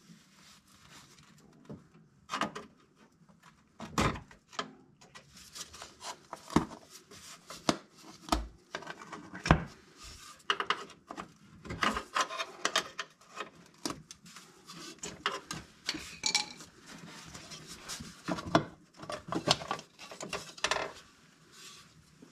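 Irregular metal clinks, knocks and scraping as a screwdriver pries the wire bail clip off and the stamped-steel valve cover is worked loose from the cylinder head of an air-cooled VW engine.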